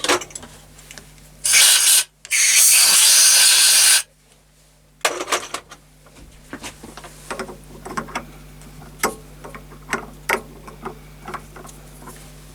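Two loud blasts of hiss, the second about two seconds long, then irregular light metallic clicks and scrapes as metal parts are handled and a component is tried on a freshly cut lathe thread that is still a little tight.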